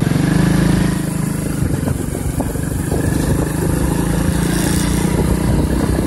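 Small motorcycle engine pulling away from idle, loudest just after it sets off, then running steadily at cruising speed.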